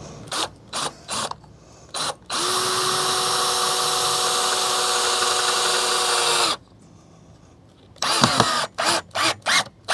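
Cordless drill running against the wall as a mounting bracket is screwed on. It starts with four quick trigger pulls, then runs at a steady whine for about four seconds and stops suddenly. Near the end come another longer burst and several quick pulls.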